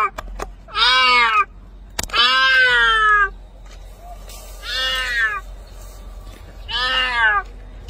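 A cat meowing again and again: four drawn-out calls about two seconds apart, each rising and then falling in pitch. The second call is the longest and the third is fainter.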